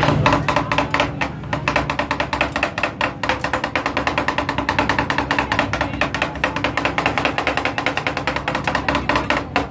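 Two metal spatulas chopping rapidly on a stainless-steel ice cream cold plate: a fast, even clatter of many metal taps a second, the stage of Thai rolled ice cream where the ingredients are chopped into the freezing cream base. The chopping stops shortly before the end.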